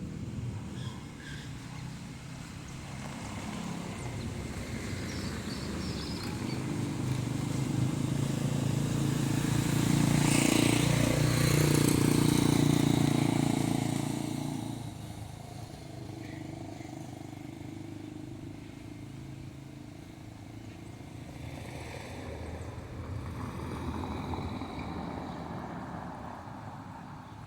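A motor vehicle's engine passing by: it grows louder to a peak about ten to thirteen seconds in, then fades, with a smaller swell near the end.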